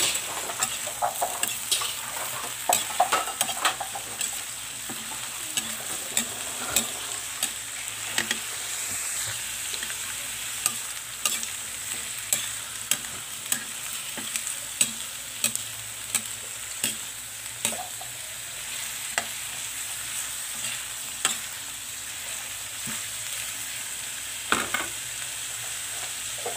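Sliced bitter gourd (ampalaya) sizzling in a hot pan as it is stir-fried, a steady hiss. Over it come irregular sharp clicks and scrapes of a cooking utensil against the pan, most frequent in the first few seconds.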